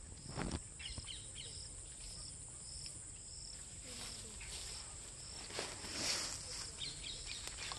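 Steady high-pitched drone of crickets, with a short chirp repeating about twice a second. Brief rustles of grass shortly after the start and again about six seconds in.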